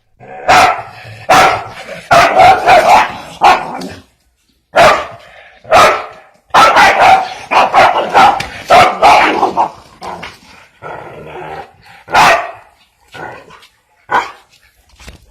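Dog barking loudly in quick runs of barks while facing off with a fowl, with a brief pause about four seconds in. The barks grow fainter and sparser near the end.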